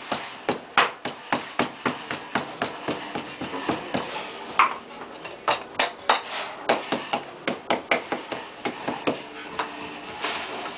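Steady hand-hammer strikes, about three a second, sharp knocks with a short ring, as part of making a sand-casting mould.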